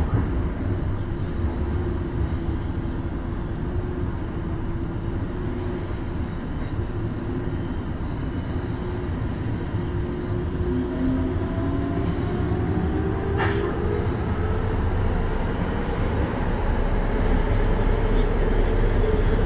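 Tokyo Metro 02 series subway car's running sound heard from inside the car: a steady rumble of wheels on rail with a motor whine that rises in pitch from about halfway through as the train picks up speed. One sharp click about two-thirds of the way through.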